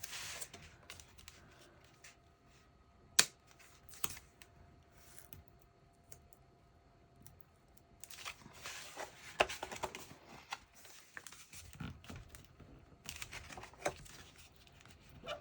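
Paper and cardstock being handled: a few sharp clicks or taps in the first four seconds, then stretches of rustling and scraping about eight seconds in and again near the end.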